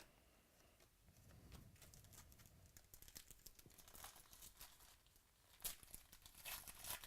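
Faint crinkling and tearing of a trading-card pack wrapper being opened, with irregular rustles that grow louder near the end.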